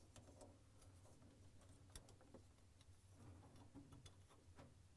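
Near silence: a few faint clicks as a refrigerator thermistor and its plastic cover are handled, the clearest about two seconds in, over a low hum.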